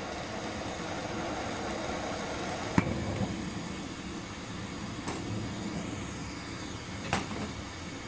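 Delta bench torch burning with a steady hiss as a bulb of glass tubing is heated in the flame. Three sharp clicks come about three, five and seven seconds in.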